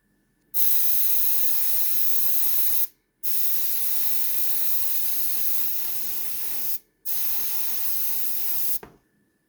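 Airbrush spraying a base coat of paint in three steady hissing passes, about two, three and a half, and two seconds long, with short breaks where the trigger is released.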